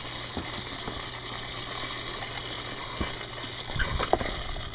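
Steady rush of moving pool water over a constant low hum, with a few light knocks near the end.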